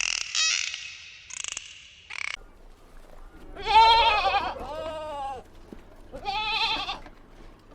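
A goat bleating, three wavering calls starting about three and a half seconds in, the first the loudest; before them, a few short, high squeaky calls from another animal.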